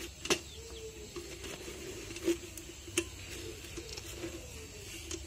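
Glutinous rice being washed by hand in a metal pot of water: swishing, with a few sharp clinks of the pot. Low bird calls repeat throughout.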